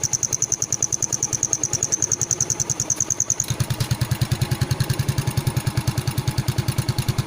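Yamaha Mio Sporty scooter's single-cylinder four-stroke engine idling through an aftermarket 'kalkal' exhaust fitted with a turbo whistle tip, giving a high whistle that pulses with each exhaust beat. About halfway through the whistle stops while the engine keeps idling with a fuller exhaust note.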